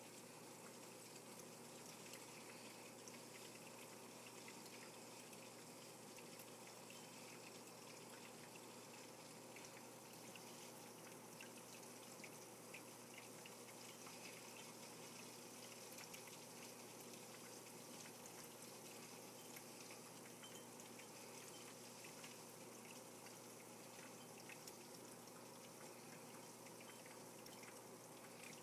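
Faint steady trickle of water with a low hum from an aquarium filter running, with scattered soft ticks.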